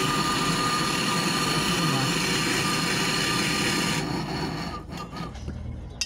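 MAP-gas brazing torch flame hissing steadily with a thin steady tone while heating a copper tube joint on a refrigerator compressor. The hiss stops abruptly about four seconds in, leaving a few light clicks and knocks.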